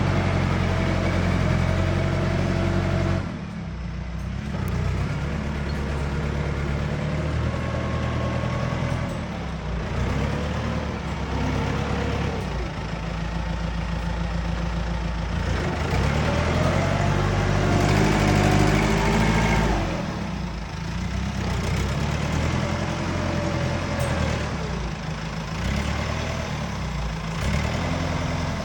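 Excavator's diesel engine running under changing load, its pitch rising and falling. The sound changes abruptly a few times, at about 3, 20 and 24 seconds in, where separate clips are joined.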